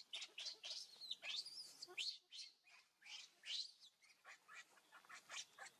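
Newborn macaque squealing: a rapid string of short, high-pitched cries, about three a second, some sliding up or down in pitch.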